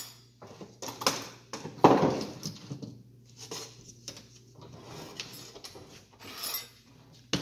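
Small sheet-metal brackets clinking and a wooden mesh-screen frame knocking against a workbench as they are picked up and handled, with one louder knock about two seconds in.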